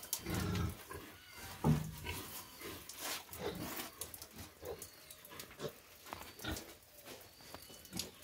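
Pigs grunting, the loudest grunts in the first two seconds. Scattered clicks and knocks follow as a sow noses and eats at a wooden feed trough.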